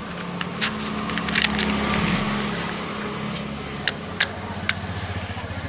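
Low, steady engine hum of a motor vehicle that swells about two seconds in and then eases, with a few sharp clicks about four seconds in.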